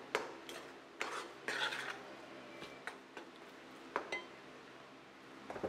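A metal spoon stirring and scraping a thick spice paste in an iron kadai, with scattered clinks of the spoon against the pan and a brief scrape about a second and a half in.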